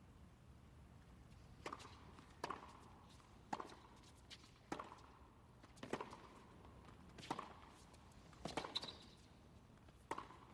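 Tennis rally: a ball struck back and forth with rackets and bouncing on the court, about nine sharp, faint hits roughly a second apart, each with a short ring.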